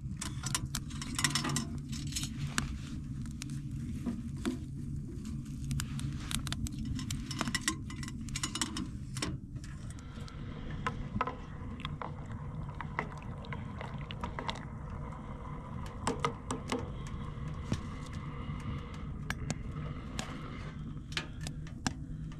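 Stainless steel canteen cup and wood stove being handled: scattered metal clinks, ticks and scrapes over a steady low hum while water is heated on the stove top.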